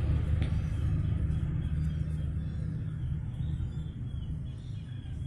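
Steady low rumble, easing off slightly toward the end, with a faint click about half a second in.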